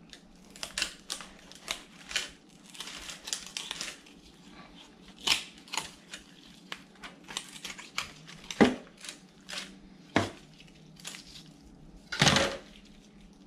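A knife cutting down the backbone of a raw whole chicken: irregular crunching and cracking of small bones and cartilage, with the aluminium foil pan crinkling under it. A louder crunch near the end as the backbone comes free.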